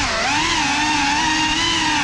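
GEPRC CineLog35 cinewhoop's ducted propellers and motors whining, heard from the drone's own camera. The pitch dips right at the start, rises again about half a second in, then holds steady.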